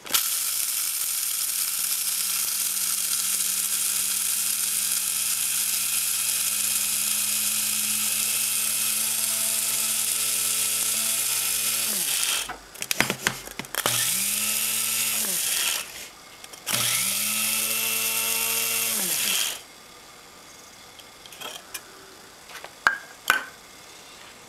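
Electric blade coffee grinder grinding coffee beans: one long run of about twelve seconds, then two short pulses, the motor's pitch rising as each starts and falling as it winds down. A few light knocks follow near the end.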